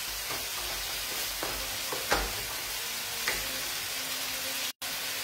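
Octopus and artichokes sizzling in a wok as white wine cooks off, with a wooden spoon stirring and clicking against the pan a few times.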